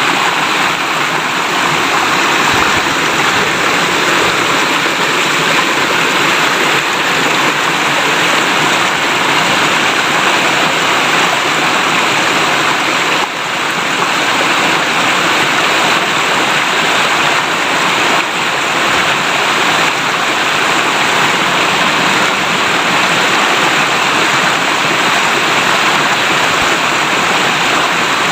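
Clear river water flowing and babbling steadily.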